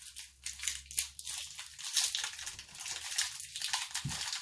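Wrappers of Toxic Waste Nuclear Sludge chew bars crinkling as they are peeled and pulled open by hand, a busy irregular crackle throughout.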